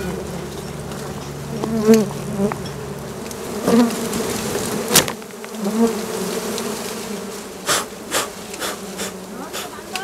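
A swarm of small honeybees buzzing steadily around their exposed comb, with single bees droning close past now and then. A few sharp snaps and clicks come as the comb is cut and pulled from the twigs, the loudest about halfway through.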